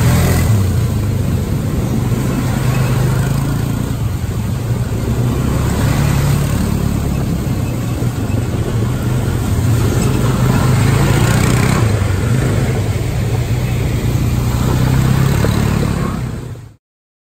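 Quad bike engines running as the ATVs ride through a muddy water pit, with water splashing and spraying around the wheels; the engine note swells and eases as the quads pass. The sound cuts off suddenly near the end.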